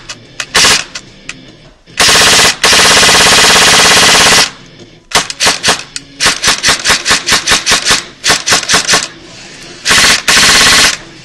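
Echo1 Troy airsoft electric rifle (AEG) test-firing off a LiPo battery after an M100 spring upgrade: a couple of single shots, a full-auto burst of about two and a half seconds, then a quick string of semi-auto shots, and a second, shorter full-auto burst near the end. The trigger response is quick and crisp ("pretty snappy").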